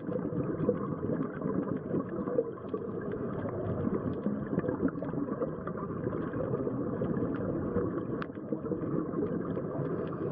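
Underwater ambience on a scuba dive: a steady rumbling hiss with many small faint clicks scattered through it.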